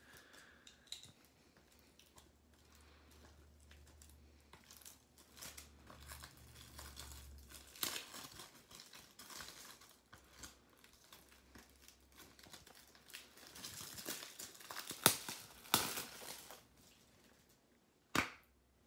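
Plastic shrink wrap on a Blu-ray case being slit with a utility knife and peeled off, faint crinkling and tearing with scattered crackles. The crackling is busiest about two thirds of the way through, and there is one sharp click near the end.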